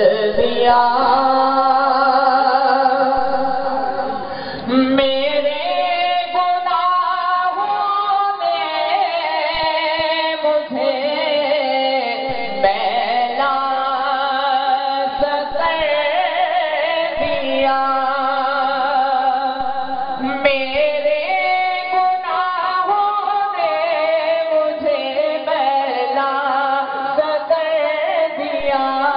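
A man singing an Urdu naat in long, drawn-out melodic phrases with a wavering pitch.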